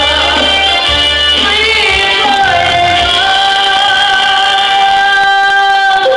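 Stage music: a singer with instrumental accompaniment, the voice holding one long note from about two seconds in until the music cuts off sharply at the end.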